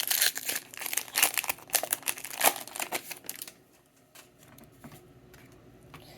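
Pokémon booster pack's foil wrapper being torn open and crinkled for about three and a half seconds, then quieter light handling of the cards.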